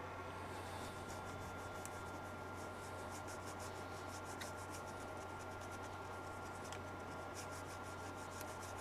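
Quick, rhythmic scrubbing strokes on a circuit board, about five a second, as flux residue is cleaned off the freshly soldered joints; a faint steady hum underneath.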